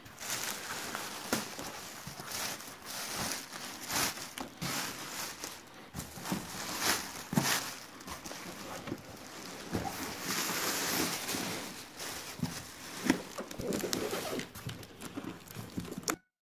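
Thin plastic bag crinkling and rustling as it is pulled off a cardboard parcel, with the box being handled and knocked. It cuts off suddenly near the end.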